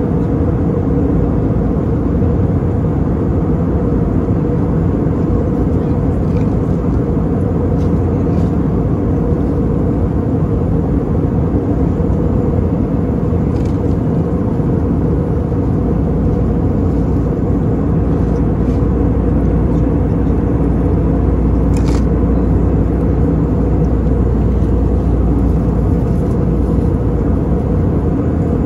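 Steady roar of an Airbus A320 cabin in flight: engine and airflow noise heard from a window seat over the wing, with a few faint clicks.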